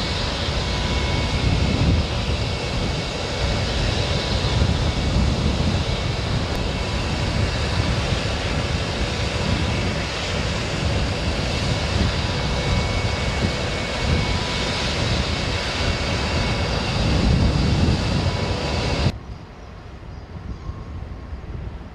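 Jet engine noise from a B-1 Lancer bomber's four turbofans: a loud, steady rumble with hiss that swells and ebbs. Near the end it drops abruptly to a much quieter rumble.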